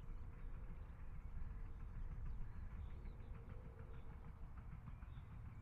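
Faint low rumble of distant road traffic, with a thin steady hum and a few faint high chirps.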